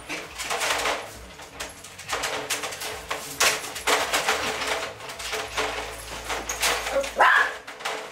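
White puppies scuffling and play-fighting in a wire crate, a run of short scraping and rustling noises, with a brief high cry near the end.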